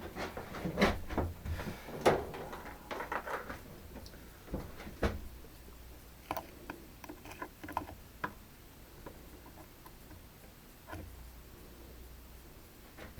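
Scattered light clicks and knocks of small tools being handled and set down at a workbench, busiest in the first few seconds.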